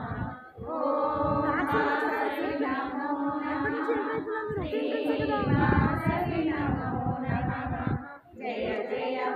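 A group of voices singing a devotional song, with short breaks between lines about half a second in and again near the end.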